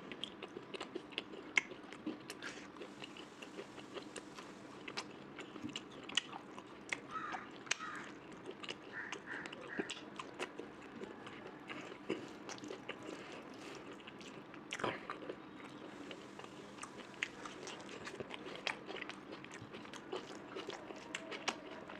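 Close-miked chewing and mouth sounds of a person eating a meal of rice with mutton curry and pork fry. There are many quick, irregular wet smacks and small crunches, with one stronger smack about fifteen seconds in.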